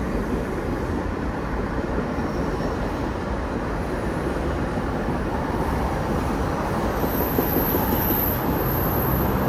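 Reading & Northern 2102 steam excursion train rolling past: a steady rumble of wheels on rail. A thin high wheel squeal joins it about seven seconds in.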